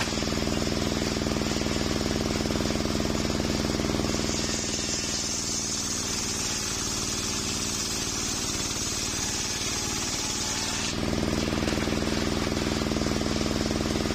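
Large table-mounted circular saw running steadily, then ripping lengthwise through a coconut log from about four seconds in until about eleven seconds, with a bright high hiss over the machine hum. Near the end the blade spins free again after the cut.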